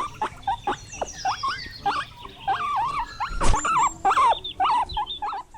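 Guinea pig squeaking: a run of short, high calls that bend up and down in pitch, several a second, with a single thump about three and a half seconds in.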